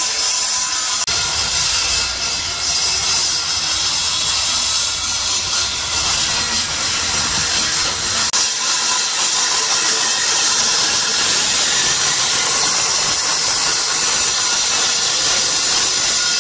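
Handheld electric circular saw cutting through an aluminium boat-propeller blade, trimming the blade tip down: a steady, high-pitched hissing cutting noise. A lower hum under it drops away about eight seconds in.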